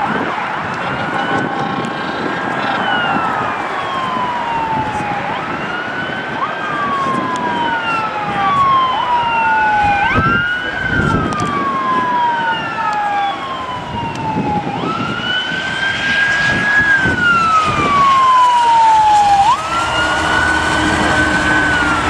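Fire truck siren wailing in slow sweeps that rise, hold and fall about every three to four seconds, at times two sweeps overlapping, over road traffic noise. It grows louder toward the end as the truck approaches.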